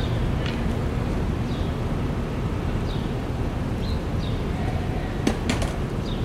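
Skateboard clacking onto a concrete ledge: a quick run of four sharp clacks a little past five seconds in, as the board is set down and stepped on. Under it, a steady low outdoor rumble with a few faint high chirps.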